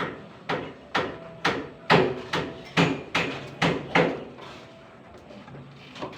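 A hand hammer striking about twice a second, some ten blows, stopping about four seconds in.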